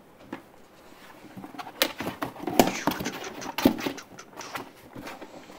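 Recycled-plastic Trixie Capri 1 pet carrier being handled and swung about: rustling broken by a string of sharp plastic clacks and knocks, loudest about two to four seconds in.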